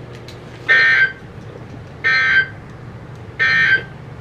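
Emergency Alert System end-of-message signal: three short bursts of SAME digital data tones, each about half a second long and about a second apart, marking the end of a severe thunderstorm warning.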